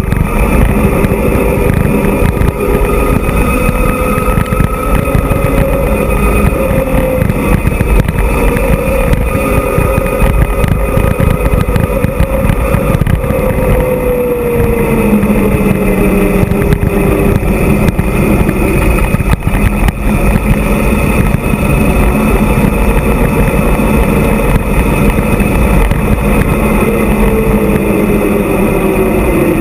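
Wind rushing over the microphone of a camera on an e-mountain bike descending a paved road at speed, with a humming tone that drops in pitch about halfway through and again near the end.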